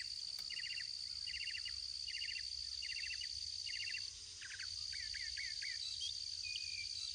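Outdoor chorus of insects and birds: a steady high insect buzz, with a short pulsed chirp repeating about every 0.7 s for the first four seconds or so, then a few quick slurred notes and scattered short calls near the end.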